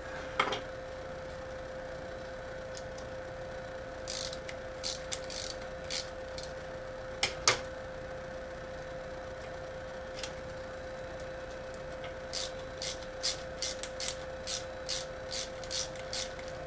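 Light clicks from hand tools and parts as hex-head sheet-metal screws are worked into the small box that mounts the laser edge finder. The clicks come singly at first, two louder ones about halfway, then an even run of two to three a second near the end, over a steady hum.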